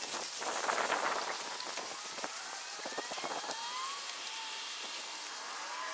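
Irregular crunching footsteps on a gravel path over a steady hiss, with a few faint rising bird calls in the middle and again near the end.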